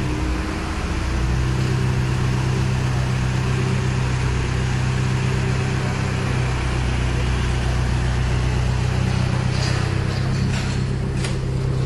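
Turbocharged Astra 2.0 16V engine with forged internals idling steadily, held at about 900 rpm. It settles into an even idle about a second in. A few light clicks near the end.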